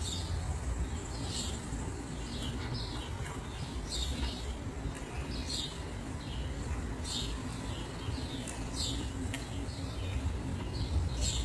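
Small birds chirping, short high calls repeated a few times a second, over a steady low rumble.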